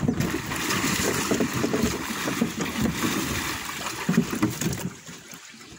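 Water splashing and churning as a large hooked tapah (wallago catfish) thrashes at the surface beside a small boat, with wind rumbling on the microphone. It quiets about a second before the end.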